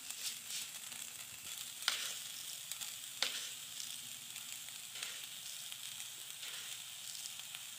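Grated coconut frying in ghee in a pan: a steady sizzle, with two sharp clicks about two and three seconds in.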